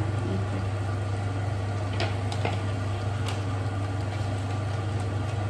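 A steady low hum of a kitchen appliance or fan, with a few faint light clicks about two and three seconds in.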